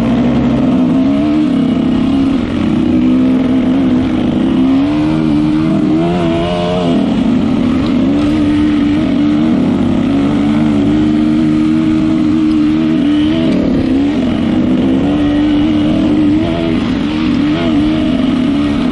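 Dirt bike engine running continuously on a ride, its pitch rising and falling again and again as the throttle opens and closes.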